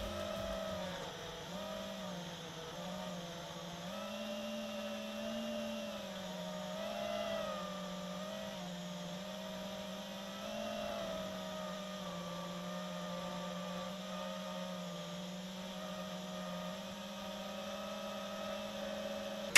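FPV quadcopter's motors and propellers whining steadily as heard from its own onboard camera; the pitch dips and rises every second or two with throttle changes.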